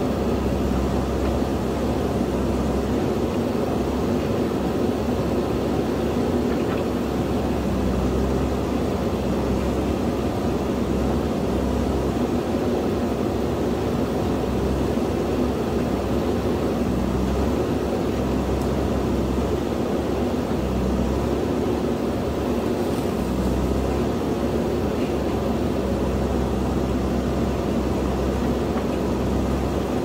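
Diesel engine of a JCB backhoe loader running steadily, with no sudden knocks or changes in pitch.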